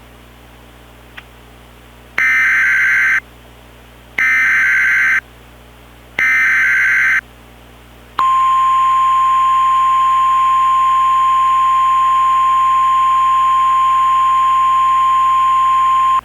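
Emergency Alert System SAME header: three one-second bursts of screechy warbling data tones, a second apart. Then the NOAA Weather Radio warning alarm tone, one steady high tone held for about eight seconds over a static hiss, marking the start of a new warning message.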